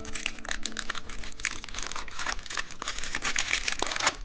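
Candy wrapper crinkling and tearing as it is opened, a dense run of small crackles.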